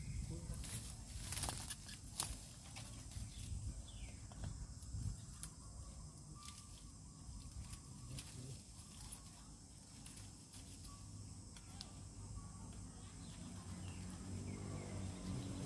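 Dry bamboo stems and leaves rustling and cracking as someone pushes and works by hand into a bamboo thicket, with a few sharp snaps in the first couple of seconds and softer scattered clicks after.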